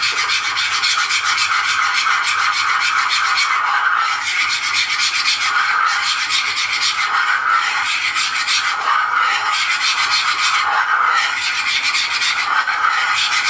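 A thin metal utensil whisked fast around a black pot, beating a salad dressing: a fast, continuous scraping that cuts off abruptly at the end.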